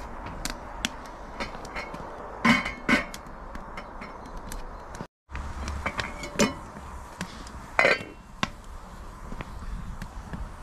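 Enamel cooking pot and its lid being handled on a small wood-burning stove: a scatter of sharp metal knocks and clinks, the loudest a pair about two and a half seconds in and another near the end. The sound drops out completely for a moment about five seconds in.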